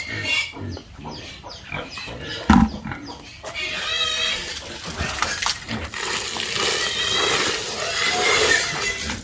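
Pigs squealing in high, wavering calls, in two longer spells around the middle and near the end, with a single sharp thump a little before three seconds in.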